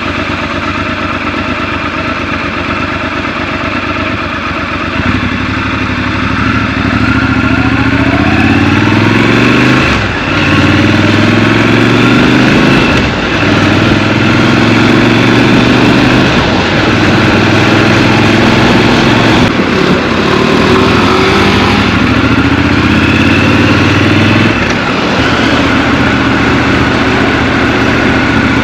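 Scrambler motorcycle engine, heard from the rider's seat: idling at first, then accelerating with rising pitch through several gear changes, each a brief dip, then running steadily at speed with one more dip near the end.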